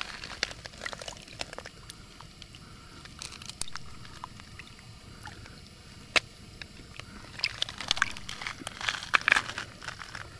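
Irregular scraping, clicking and sloshing as a hooked turtle is handled at the water's edge, with one sharp knock about six seconds in and a busy run of scrapes and clicks in the last few seconds.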